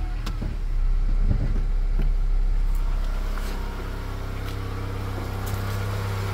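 Honda CR-V 2.4-litre engine running with its accessory drive belts removed, still knocking, so the knock comes from inside the engine itself and not from the alternator, idler pulley or other belt-driven parts. The engine note drops to a lower steady level about four seconds in.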